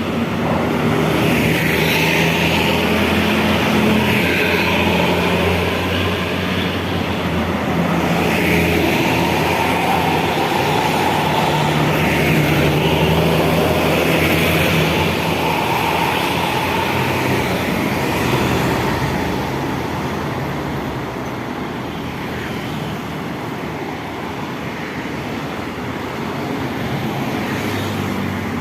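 Escorted convoy of large buses and other traffic driving past, engines running and tyre noise, easing off somewhat in the second half.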